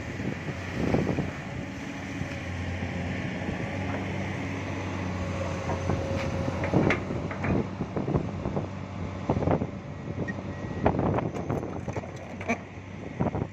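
Diesel engine of a Komatsu PC200 hydraulic excavator running steadily. Several short splashes and knocks come through as its bucket scoops muddy water from a puddle and dumps it over a vibratory roller's drum to wash off the mud.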